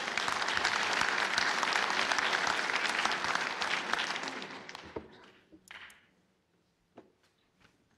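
Audience applauding, dying away about five seconds in, followed by a few faint clicks.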